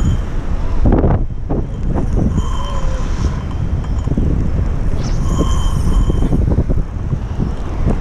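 Strong wind buffeting the microphone with a heavy, gusting rumble. A short, steady high whine comes in twice, about two and a half and five seconds in, each lasting about a second.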